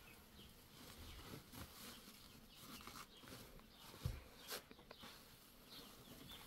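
Near silence: faint background ambience with a few soft clicks and one low thump about four seconds in.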